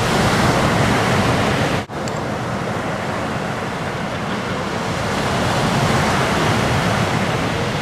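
Surf: waves breaking and washing in, a steady loud rush of water noise, with a brief drop-out about two seconds in.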